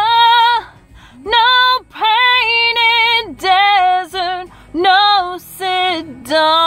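A woman singing a country chorus along to a song, in a run of long held notes with short breaths between them.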